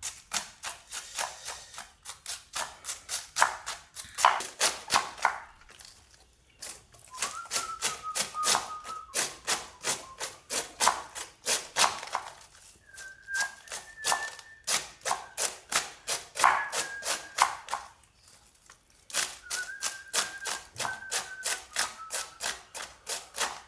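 Knife rapidly chopping cabbage on a board, several strokes a second, with two short pauses.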